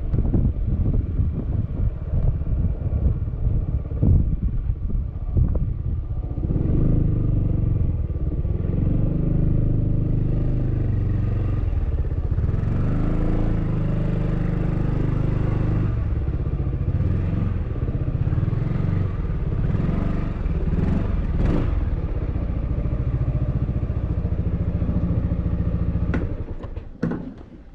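Yamaha XMAX scooter's single-cylinder engine running at low speed, its pitch rising and falling, with wind on the microphone and some knocks over the first several seconds. The engine sound drops away near the end.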